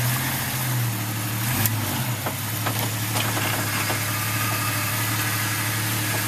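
Off-road 4x4's engine running at low revs, easing back to a steady idle about two seconds in, with a few short sharp knocks over the next second or so.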